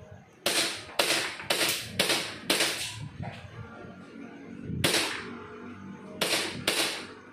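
WE Glock 17 gas blowback airsoft pistol firing semi-automatic shots, each a sharp crack with the slide cycling: five in a steady string about two a second, a pause of about two seconds, one shot, then a quick double tap.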